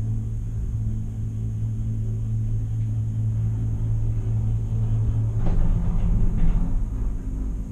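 Steady low hum and rumble of a gondola cabin riding along its cable, swelling into a louder rush about five and a half seconds in.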